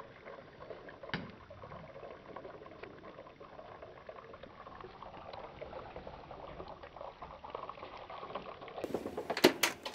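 Batter-coated venison sausages, one in coconut-cream batter and one in beer batter, deep frying in hot oil in a steel pan over coals: a steady bubbling sizzle with fine crackles. A few sharp knocks near the end.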